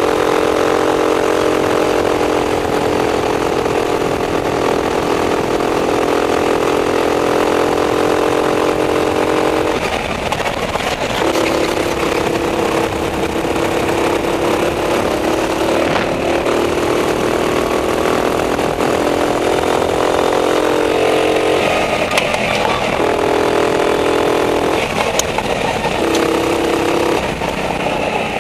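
Racing kart engine running hard at high revs, a steady buzzing note. About ten seconds in it drops away briefly as the driver lifts off, then comes back, and there are several more short lifts near the end.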